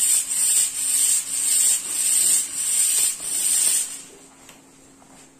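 Stage fog machine spraying a loud hiss that comes in surges about every half second, then cuts off about four seconds in.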